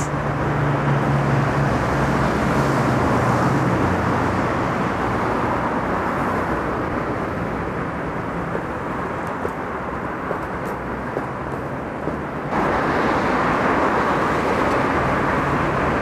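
Steady city traffic noise: the constant rumble of cars on a nearby road. About twelve seconds in it turns abruptly louder and brighter.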